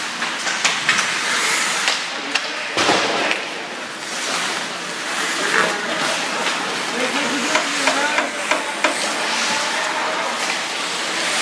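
Ice hockey play: skate blades scraping and carving the ice, with sticks and puck clacking repeatedly and a louder knock about three seconds in, and players calling out.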